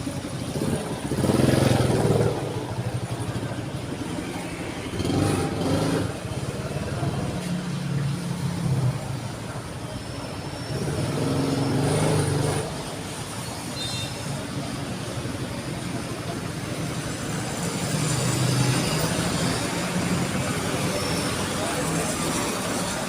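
Heavy highway traffic passing, with several deep, low-pitched blasts of a second or two each from ship-style air horns on passing trucks or buses.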